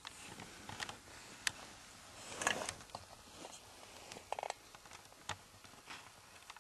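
Handling noise of a handheld camera: faint rustling with scattered small clicks and knocks, one louder rustle about two and a half seconds in.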